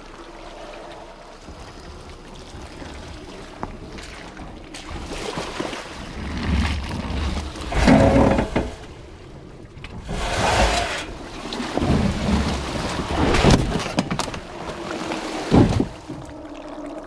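Rivian R1T electric pickup's tyres churning and splashing through a water-filled mud rut, with several loud surges of sloshing as the wheels push through the mud. No engine note: the electric drive is near silent under the tyre and water noise.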